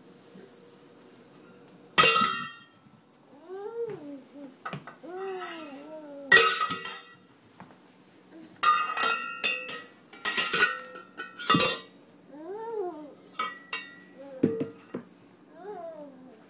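A toddler banging a stainless steel cooking pot and its metal lid on the floor: several loud, sharp clangs, each ringing briefly, with smaller knocks in between. Short high-pitched vocal sounds that rise and fall come in the gaps between clangs.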